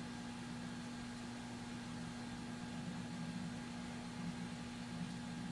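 Steady low hum with faint hiss and no events: background noise of the recording.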